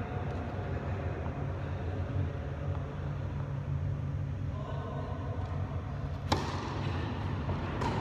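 A tennis ball struck by a racket once, a sharp pop about six seconds in that rings briefly in the large hall, over a steady low hum.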